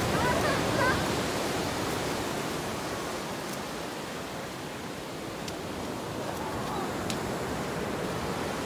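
Ocean surf breaking and washing up a sandy beach: a steady rush of waves that eases about halfway through and swells again toward the end.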